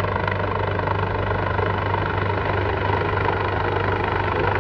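Helicopter flying low overhead, its rotor and engine running with a steady, even beat.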